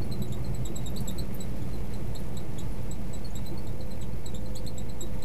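Steady low drone of a semi truck's engine and tires on a wet, slushy highway, heard from inside the cab, with faint scattered high ticks.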